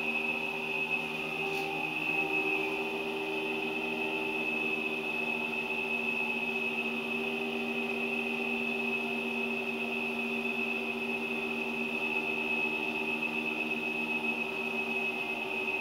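A small motor running steadily: a low hum with a constant high-pitched whine.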